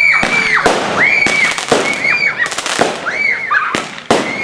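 Backyard fireworks going off in a rapid string of sharp bangs, several a second. Short high tones that rise and then fall sound between the bangs.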